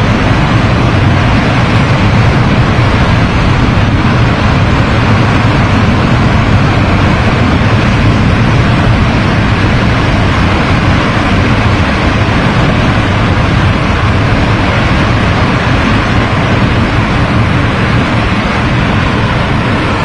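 A debris flow of mud and boulders pouring down a waterfall: a loud, steady rushing rumble, deepest in the low end, with no let-up.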